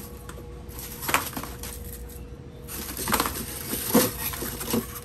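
Plastic ice-cream wrappers crinkling and packets knocking together as someone rummages in a chest freezer, in a few short bursts over a steady faint hum.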